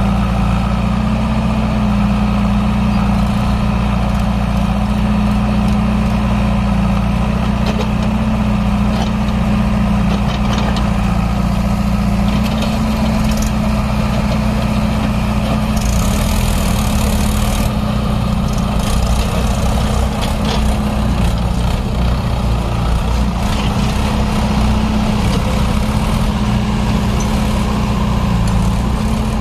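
Diesel engines of a Mahindra 575 DI tractor and a JCB 3DX backhoe loader running steadily at close range, with a brief hiss about sixteen seconds in.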